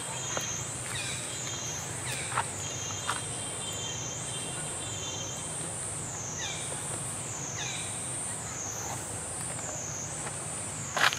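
A steady, high-pitched insect drone that wavers up and down about once a second, with a few short chirps over it and a brief sharp click just before the end.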